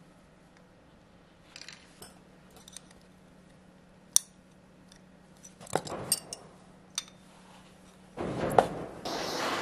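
Hand tools working fine jewellery wire against a steel bar: small sharp metallic clicks and taps from plier jaws. Near the end comes a louder, noisier stretch with one sharp snap as end-cutting nippers cut the wire.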